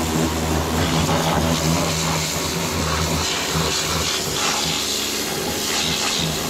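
Pressure washer running: a steady motor drone under the hiss of the high-pressure water jet. The drone weakens about halfway through while the spray hiss carries on.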